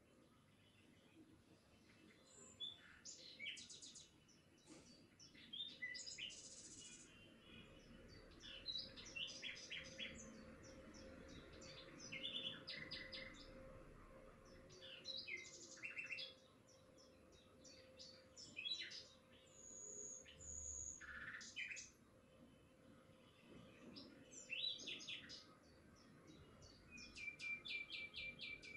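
Small birds chirping and trilling, in many short high calls and quick repeated trills. Beneath them, through the middle, a faint steady hum from the stand mixer kneading dough.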